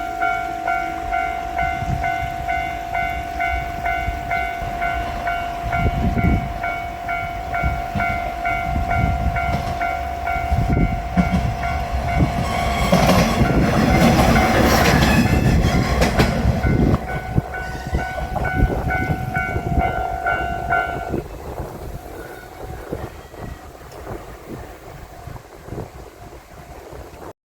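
Japanese level-crossing warning bell ringing in a steady repeated kan-kan while a JR Shikoku 1500-series diesel railcar passes. The railcar's engine and wheel clatter swell to their loudest about halfway through. The bell stops about three-quarters of the way in, and the train's rumble fades away.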